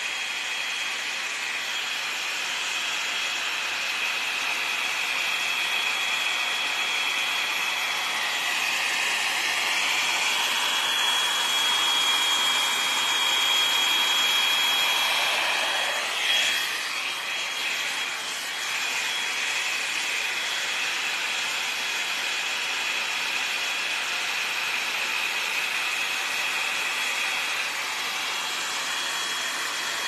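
L'Ange Max Volume hot-air brush running: a steady rush of blown air with a thin, high fan whine, which wavers briefly about halfway through.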